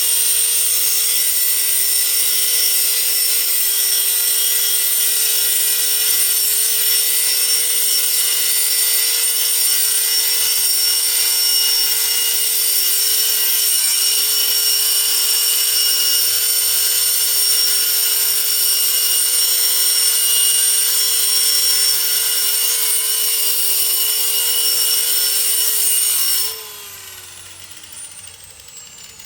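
Hammerhead 6-amp 4.5-inch electric angle grinder running at full speed, a steady motor whine over a loud hiss of the disc cutting a steel chain link fence post. Near the end it is switched off and the motor winds down, its pitch falling.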